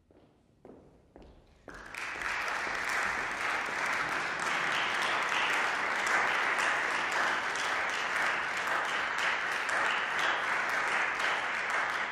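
Audience applauding: a few scattered claps, then full, steady applause from about two seconds in that starts to die away at the very end.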